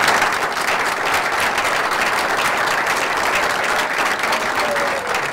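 Audience applauding: steady, dense clapping from a roomful of seated people at the close of a speech.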